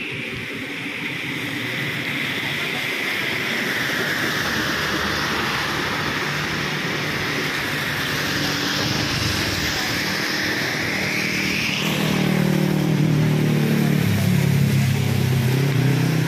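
Traffic on a rain-soaked road: tyres hiss through standing water over steady rain. About three-quarters of the way through, a vehicle's engine comes close and passes, its pitch falling.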